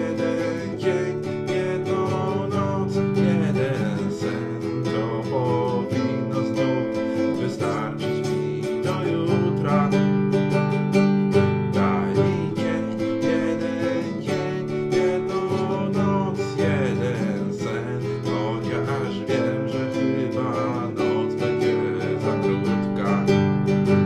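A man singing a song to his own strummed nylon-string classical guitar, steady chord strums throughout.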